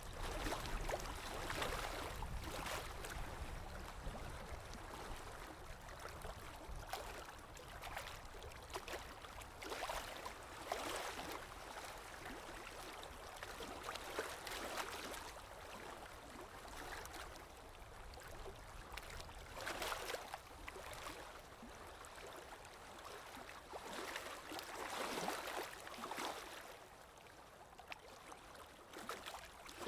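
Water lapping in small irregular splashes every second or two, over a low rumble of wind.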